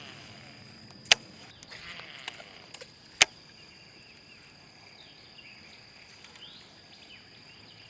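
Two sharp clicks about two seconds apart over a steady high-pitched drone, with a few faint short chirps later on.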